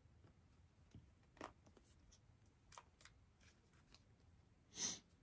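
Near silence, with a few faint soft clicks and rubs from a silicone mould being flexed and peeled away from a freshly cast, still-soft Alumilite resin piece. A short hiss comes near the end.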